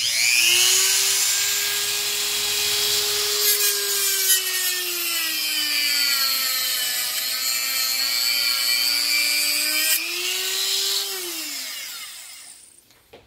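Dremel rotary tool with a cutoff wheel running at high speed and cutting into the plastic case of a Ram active grille shutter actuator: a steady high whine with a gritty cutting hiss over it. The pitch sags as the wheel is pressed into the cut and rises again when it is eased off, and near the end the tool winds down and stops.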